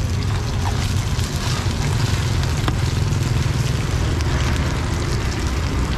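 Busy street-market ambience: a steady low rumble, like motor traffic, under a constant hiss.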